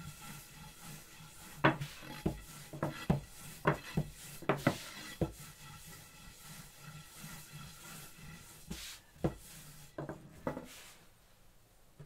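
A long wooden soba rolling pin rolling out buckwheat dough on a wooden board, with a rubbing sound of pin and fingers on the floury dough. Sharp wooden knocks come as the pin drops off the dough onto the board: a quick run of them between about two and five seconds in, and a few more later on.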